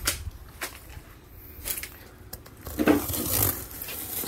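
Cardboard box being opened: sharp snaps and clicks as the top is pulled free, then a louder stretch of scratching and tearing of cardboard and tape a little under three seconds in.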